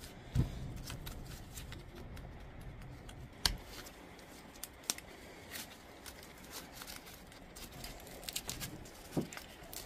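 Hands reassembling a Bosch 18V lithium-ion power tool battery pack: scattered light clicks and taps of plastic case parts and cells over a faint rustle of insulation being handled.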